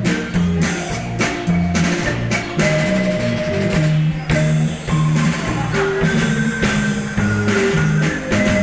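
Live band playing: two players on one marimba, with an electric bass guitar and a drum kit keeping a steady beat.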